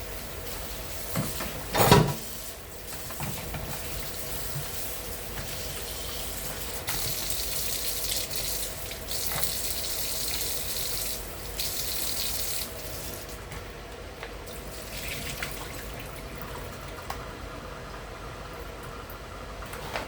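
Kitchen tap running into a sink while raw shrimp are rinsed by hand. The stream is strongest for about five seconds in the middle, and there is one loud clatter about two seconds in.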